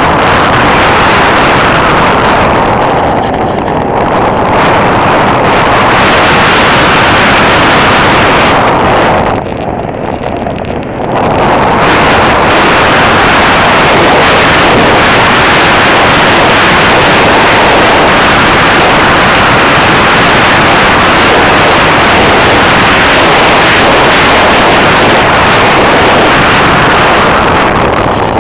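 Loud, steady rush of wind over the microphone of a camera mounted on a small plane in flight, mixed with the plane's engine and propeller noise. It drops for about two seconds near the middle, then comes back at full level.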